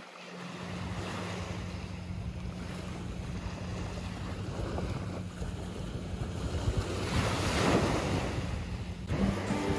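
Small sea waves breaking and washing up a sandy shore, with wind on the microphone. A bigger wave breaks and rushes in about seven to eight seconds in, and the surf cuts off suddenly shortly before the end.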